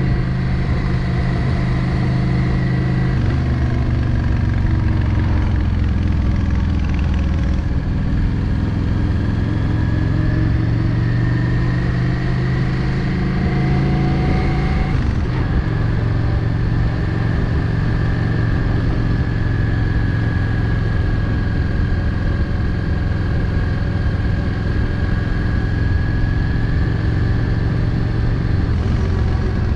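Yamaha XVS650 Drag Star's V-twin engine running under way, recorded on the bike. Its pitch drops about three seconds in, again around seven seconds, and more sharply around fifteen seconds, climbing back each time with the throttle.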